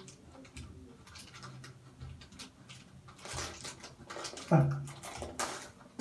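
Faint clicks and rustling as a small plastic salt sachet is handled and cut open. About four and a half seconds in comes a short, louder voice-like sound, then a brief loud burst.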